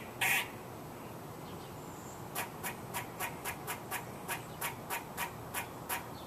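A squirrel calling: one harsh call right at the start, then from about two seconds in a steady run of short, sharp chirps, three or four a second.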